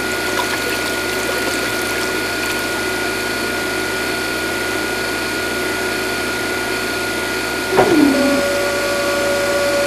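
Small DC motor of a toy borewell drilling rig running steadily with a thin whine as its drill pipe churns into wet sand. Near the end a switch is flicked, one tone slides quickly down in pitch, and a new steady whine starts.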